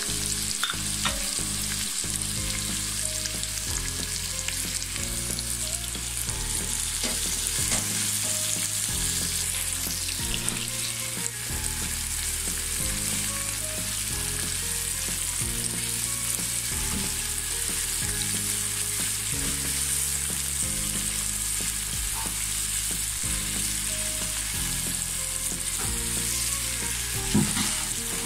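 Chopped onions and dried red chillies sizzling steadily as they fry in hot oil in a nonstick pan, stirred now and then with a spatula: onions being fried for the tempering of a nihari. A single sharp knock near the end.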